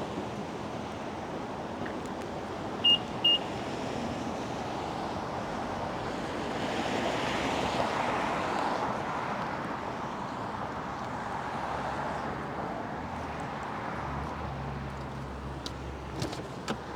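BMW M8 Competition driving gently: steady road and tyre noise with a low engine hum, swelling for a few seconds about halfway through. Two short high electronic beeps, about half a second apart, sound a few seconds in.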